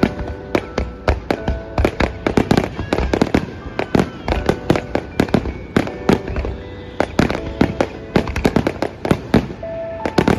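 Fireworks display going off in rapid succession: many sharp bangs and pops a second, overlapping one another without a break.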